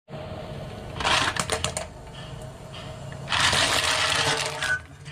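Butter clam shells clattering against each other and the metal pot as they are stirred with a spatula in boiling water, in two bursts of rapid clicks, the second longer, over a steady low bubbling.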